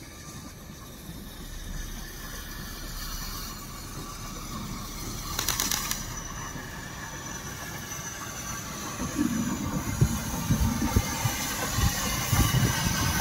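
Taff Vale Railway No.85, an 0-6-2T steam tank locomotive, approaching with its coaches, the rumble of wheels on the rails growing steadily louder as it draws alongside. There is a brief hiss about five seconds in.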